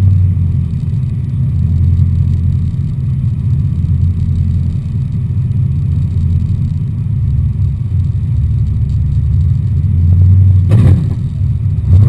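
LS7 V8 in a Nissan S13 drift car idling with a steady low rumble. A short sharp knock sounds about eleven seconds in.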